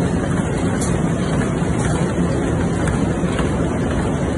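EMBA 244 three-colour flexo folder-gluer casemaker with rotary die-cutter running in production: a steady, loud mechanical din with a low hum.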